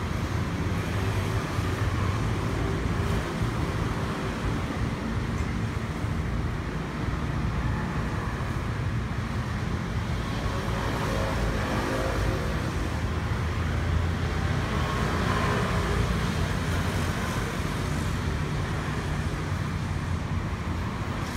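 Steady road-traffic noise: a continuous low rumble of passing vehicles.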